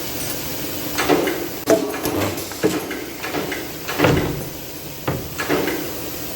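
Irregular metallic clunks and knocks, about half a dozen, from metal work at a press and spot-welding machine, over a steady machine hiss.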